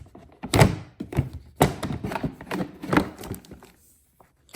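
Hard plastic parts of a kids' ride-on truck knocking and thunking as they are taken out and handled, about half a dozen knocks over three seconds.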